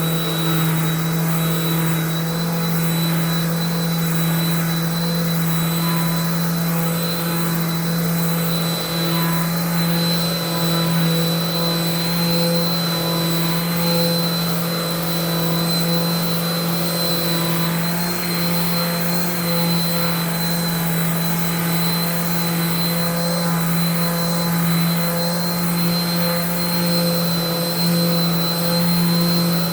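Electric sander running steadily with 220-grit paper, sanding a cured coat of epoxy pour fill: a constant low motor hum with a steady high whine.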